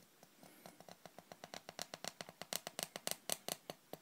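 Reed calligraphy pen scratching across paper while drawing a curved stroke: a fast run of faint small ticks, about nine a second, that grows louder and stops near the end.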